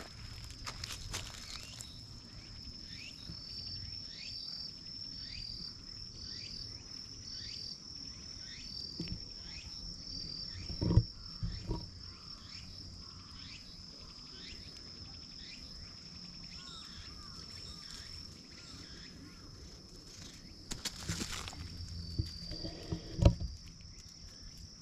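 Woodland insect drone: a steady high-pitched buzz, with a run of short, falling chirp calls repeated a little more than once a second through the first half, growing fainter. Two sharp knocks, about halfway and near the end, and a brief rustle shortly before the second.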